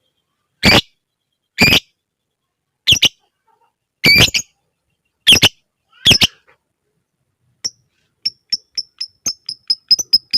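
Lovebird calling: harsh, loud screeching calls about once a second, then from about eight seconds in a fast run of short, high ticking chirps, the lovebird 'ngetik' ticking used as a lure call for other lovebirds.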